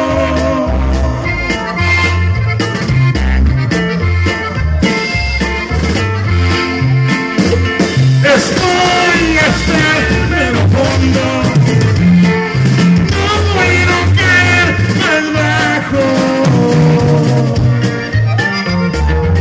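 Live norteño music: a button accordion playing the melody over guitar and a drum kit keeping a steady beat.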